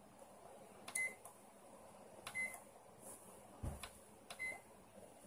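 Microwave oven keypad being pressed: several button clicks, three of them with a short high beep, the beeps spaced a second or more apart, and a soft low thump near the middle.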